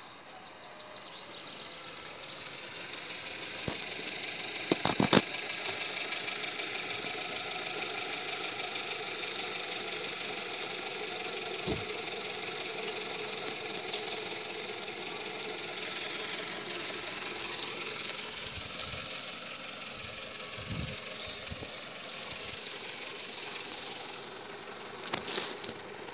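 Renault hatchback's engine idling close by, a steady hum that grows louder over the first few seconds as the car rolls up and then holds. A few sharp knocks about five seconds in and again near the end, and some dull thumps in between.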